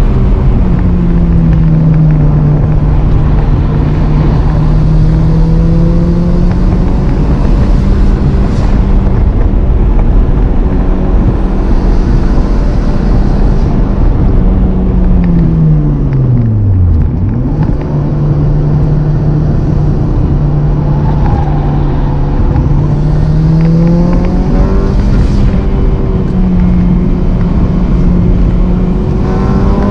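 Race car engine heard from inside the cabin, held at high revs on light throttle. About halfway through, its pitch falls sharply as the driver lifts off and brakes, then picks back up after a downshift to third. It climbs again near the end as the throttle comes back on.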